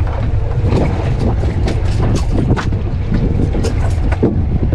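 Strong wind buffeting the microphone on a small boat, a low steady rumble, with water slapping against the hull in short irregular splashes.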